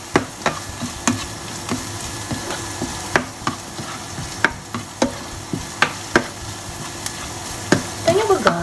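Garlic, ginger and onion sautéing in coconut oil in a nonstick frying pan, with a steady sizzle as the onions begin to caramelize. A plastic spatula stirs them, knocking and scraping on the pan about once or twice a second.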